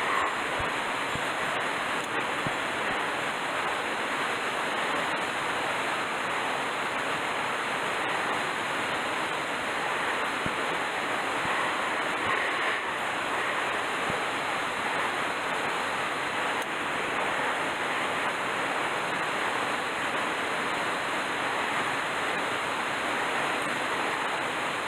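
Mountain stream rushing over rocks: a steady, even rush of water with no let-up.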